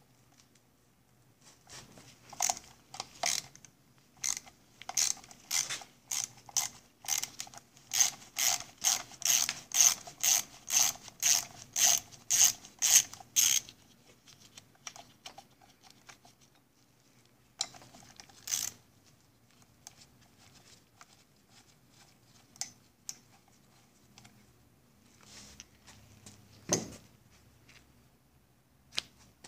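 Ratchet wrench clicking in a long run of quick strokes as it backs off a nut holding the pull starter on a Johnson 9.5 HP outboard, the clicks getting faster and louder before stopping about halfway through. A few separate clicks and a single knock follow.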